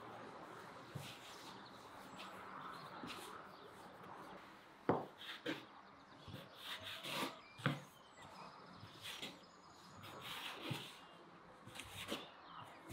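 Hands rolling and rubbing bread dough on a floured wooden board, then a plastic dough scraper cutting the dough into portions: a series of short knocks as the blade strikes the board, starting about five seconds in.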